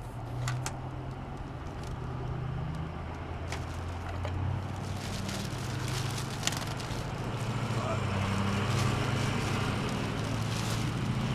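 A motor vehicle engine running steadily with a low hum that grows louder toward the end, with a few light clicks over it.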